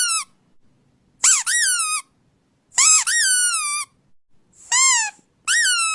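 Squeaky toy squeezed repeatedly: a series of high-pitched squeaks, each rising and then falling in pitch, about one a second, with the last one held longer.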